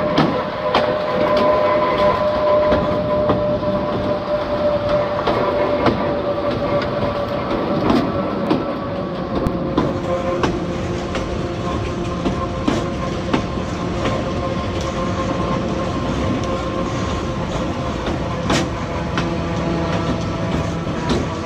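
Narrow-gauge steeple-cab electric locomotive running along the track, heard from on board. A steady whine runs under the noise of the wheels, which click over rail joints at irregular intervals.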